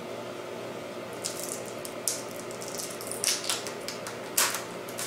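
Crisp red cabbage leaves being snapped and peeled off the head by hand: a few short, sharp cracks and crackles, the loudest about four and a half seconds in, over a steady low hum.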